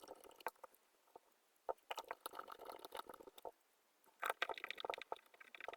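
Faint handling noise: scattered small clicks and crackly rustling in two spells, about two seconds in and again about four seconds in.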